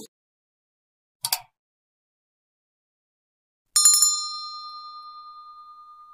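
Subscribe-animation sound effects: a short double click about a second in, then a bell-like ding near four seconds whose single ringing tone fades slowly away.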